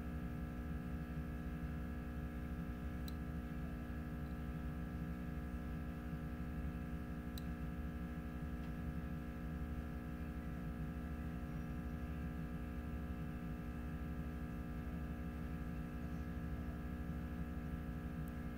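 Reflow equipment running with a steady hum made of several fixed tones over a low rumble. There are two faint clicks, about three and seven seconds in.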